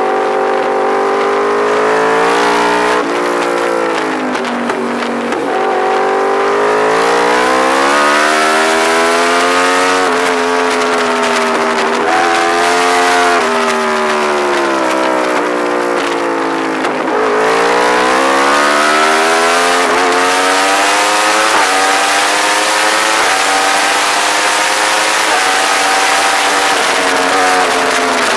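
Yamaha R1 sportbike's inline-four engine at track speed, revs climbing and falling through corners with quick gear changes, then a string of upshifts as it pulls down a straight over the last ten seconds. Wind noise rushes over the microphone throughout.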